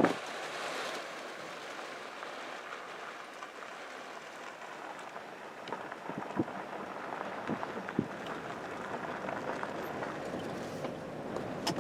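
Steady hiss of storm rain and wind, with a few faint taps scattered through it.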